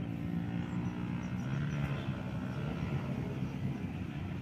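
Steady low engine drone with no breaks or changes in level.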